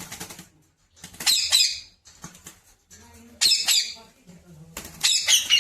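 Pet parrot squawking, three harsh high-pitched calls spaced about two seconds apart.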